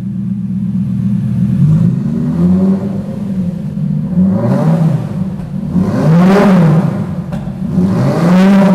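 Lamborghini Gallardo's V10 idling, then revved in five short throttle blips, each a quick rise and fall in pitch, with echo off the garage walls.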